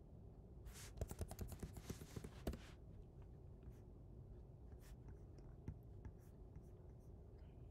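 Typing on a computer keyboard: a quick run of keystrokes for about two seconds, starting under a second in, followed by a few scattered faint clicks.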